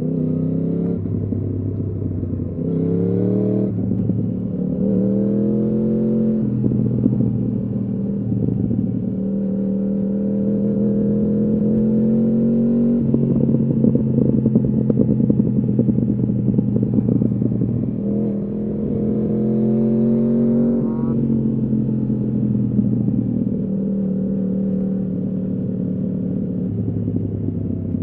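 2015 Yamaha R1's crossplane inline-four through a full Akrapovič exhaust, ridden on the road: the engine note climbs under throttle over several stretches, with a quick run of rising steps about three seconds in, and drops back at gear changes about halfway and again later.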